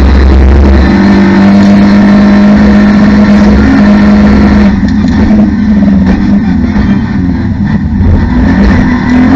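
Cupra León TCR race car's turbocharged four-cylinder engine, recorded inside the cockpit. It runs hard at high revs in fourth gear, then from about halfway the car brakes and shifts down to first: the engine note drops and breaks up unevenly. It picks up again near the end.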